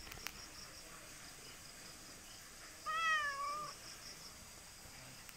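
A domestic cat meows once, a single call of just under a second that rises and then falls in pitch, about three seconds in.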